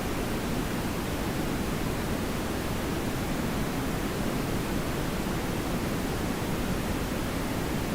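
Analogue TV static: a steady, even hiss of noise with no tones or breaks, weighted toward the low end.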